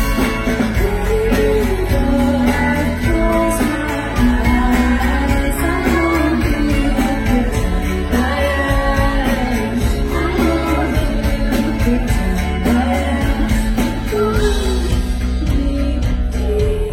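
A song: a singing voice over instrumental backing with a steady beat.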